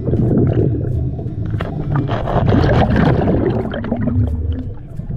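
Underwater rumble and gurgling from a scuba diver's exhaled regulator bubbles, heard close on the diver's camera, with constant crackling and small clicks. It dips a little about four to five seconds in.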